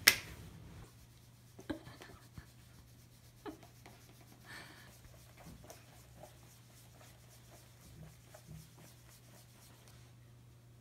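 Faint handling of a plastic tub of flour: a sharp tap at the very start, then a few light scattered taps and a brief soft rustle about four and a half seconds in.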